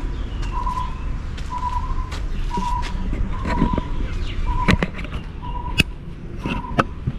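Outdoor ambience: a bird repeats one short, steady note about once a second over a low background rumble, with a few sharp clicks in the second half.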